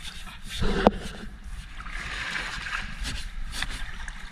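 Steel-wool scouring pad scrubbing the side of a boat's hull, with water splashing and dripping, and one sharp knock about a second in.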